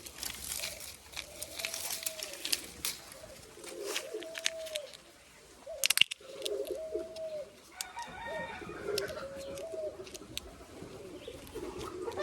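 A dove cooing: several short coos a couple of seconds apart. Scattered crisp clicks and rustles, with one sharp snap about six seconds in, come from dry bean plants being handled as a pod is picked.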